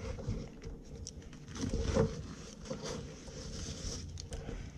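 Handling noise from a fabric tool roll holding steel punches and chisels: irregular rustling with soft clicks as hands smooth the roll and shift the tools in their pockets, a little louder about two seconds in.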